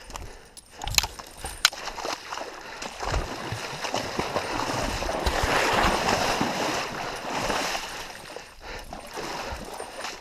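Footsteps splashing through shallow water, a steady splashing noise that grows louder in the middle, with a couple of sharp snaps in the first two seconds.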